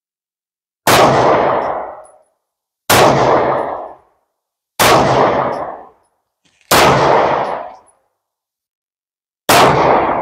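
Smith & Wesson M&P 9mm compact pistol fired five times, about two seconds apart with a slightly longer gap before the last shot. Each loud shot trails off over about a second.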